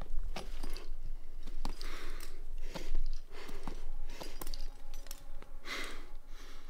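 Climber breathing hard under strain, with a sharp, noisy exhale every second or so, and small scrapes and clicks of hands and rock shoes on sandstone as he works up a finger crack.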